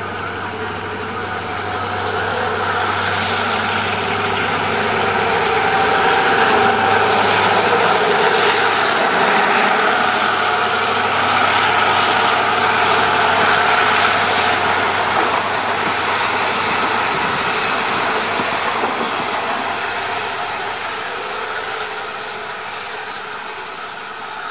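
Diesel-hauled passenger train running past: the noise of its wheels on the rails swells to a peak midway and fades as the train draws away, over a low engine hum in the first several seconds.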